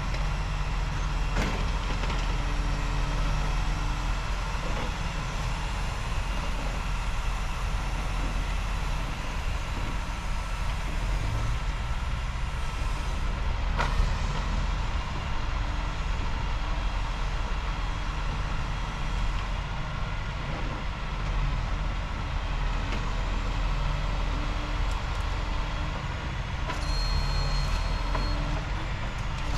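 Engine of a truck-mounted knuckle boom grapple saw running steadily, with a single sharp knock about halfway through.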